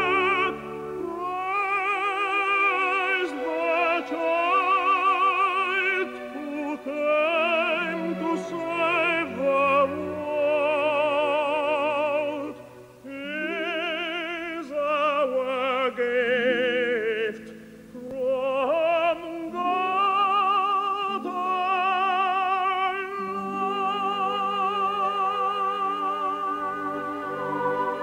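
Operatic-style singing with a wide, even vibrato over a sustained musical accompaniment, in long held phrases with two brief breaks between them.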